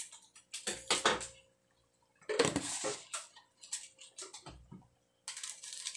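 Kitchen utensils and cookware clattering in a few separate short bursts, such as a spoon knocking against a dish or pot while seasoning is readied.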